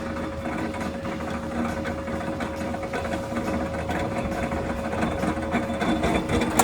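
Geared pillar drill running under load while drilling a 38 mm hole, a steady mechanical whirr with a held tone that drops away near the end, and a sharp knock at the very end.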